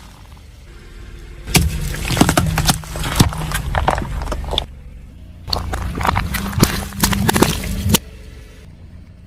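Car tyre rolling over and crushing crunchy objects: two bouts of cracking and snapping, the first about a second and a half in and the second from about five and a half seconds, over the low hum of the car.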